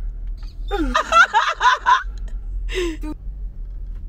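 A person laughing and exclaiming excitedly for about a second, then a shorter vocal sound about three seconds in, over the low steady rumble of the car cabin.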